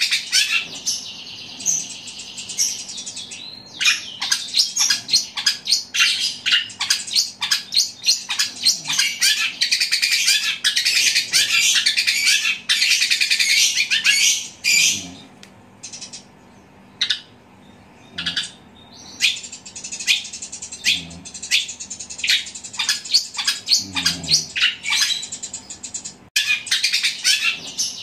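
Caged long-tailed shrike (cendet) singing loud, fast runs of sparrow-like chirps, mimicking a Eurasian tree sparrow. The song pauses for a few seconds around the middle, then resumes.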